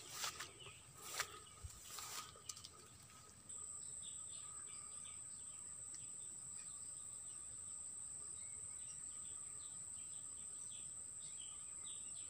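Faint outdoor ambience: a few soft rustling steps through grass early on, then a steady high insect drone that starts about three and a half seconds in, with faint bird chirps scattered over it.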